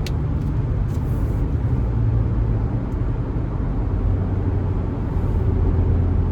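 Car's engine and road rumble heard inside the cabin: a steady low drone whose hum shifts slightly in pitch, with one brief click at the very start.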